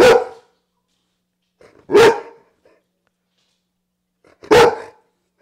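A dog barking three times, each bark short and loud, roughly two seconds apart.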